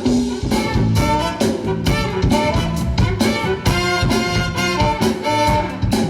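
Live band playing an instrumental passage: a drum kit keeps a steady beat under sustained melody lines, with no singing.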